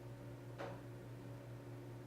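Quiet room tone: a steady low hum, with one short click about half a second in.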